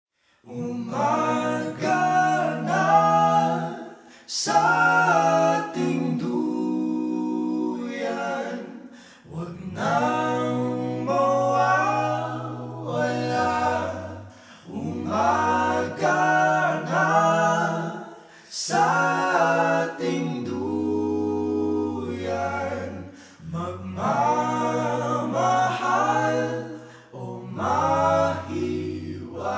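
A song sung by several voices in harmony, a cappella, in phrases of about four to five seconds, each over a low held note.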